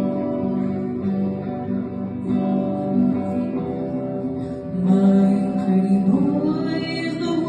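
A band playing a song live, led by guitar, with sustained tones throughout; a voice-like melody rises in near the end.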